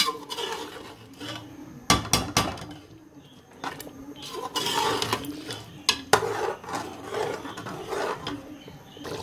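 Metal spoon stirring a thick curry in a metal pot, scraping along the pot and knocking against its sides, with several sharp clinks.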